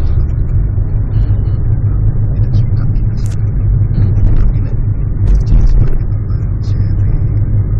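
Steady low rumble of a car driving along a road, heard from inside the cabin: engine and tyre noise. Faint short higher sounds come and go on top.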